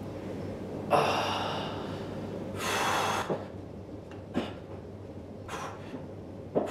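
A man breathing hard through the effort of one-arm dumbbell curls. A sharp breath comes about a second in, a longer exhale about three seconds in, and shorter breaths follow with each rep.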